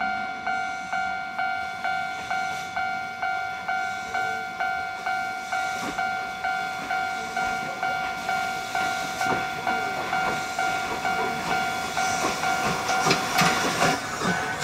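Level-crossing warning bell ringing steadily, about two strikes a second, while the C58 363 steam locomotive approaches. Its steam hiss and wheel clatter grow louder over the last few seconds as it passes close by.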